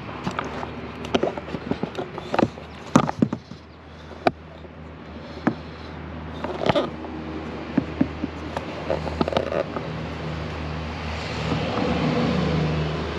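Scattered knocks and clicks of handling, then from about nine seconds in a cordless drill runs steadily, getting louder near the end as it bores into the edge of a boat windshield.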